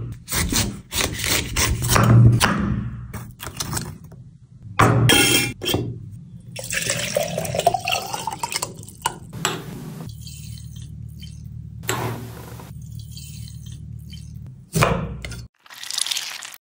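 A knife chops into a tender coconut on a wooden board in a few sharp strikes. Then coconut water pours into a glass jar, its pitch rising as the jar fills. Near the end comes a short squeeze and drip from a metal hand press.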